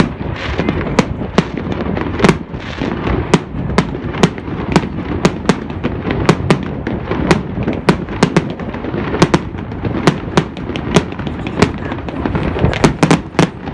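Aerial fireworks going off in quick succession: many sharp bangs, several a second at irregular intervals, over a steady low rumble. A rapid flurry of bangs comes near the end.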